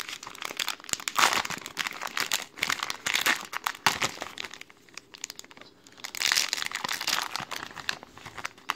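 Plastic wrapper of a 2012 Topps WWE trading-card pack being torn open and crinkled by hand, in irregular crackling bursts that are loudest about a second in and again around six seconds in.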